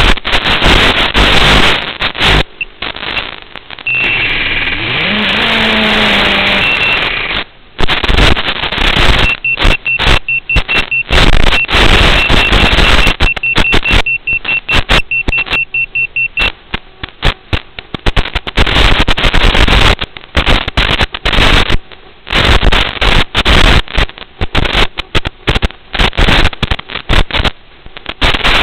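Loud hiss of an analog FPV video link's audio as recorded on the goggles, crackling and cutting in and out as the signal from the crashed drone breaks up. A quick run of high beeps sounds through it from about nine to sixteen seconds in.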